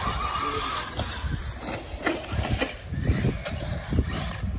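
Radio-controlled cars running on a dirt track: a faint motor whine that rises and falls, with tyres ticking and crackling over the dirt.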